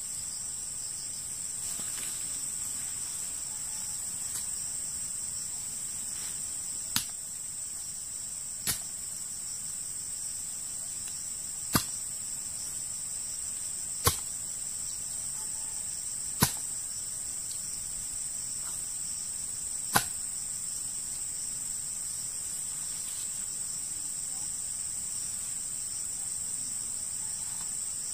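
Six sharp knocks a few seconds apart, a tool striking at ground level while the trap's springy trigger pole is set in place, over a steady high-pitched drone of forest insects.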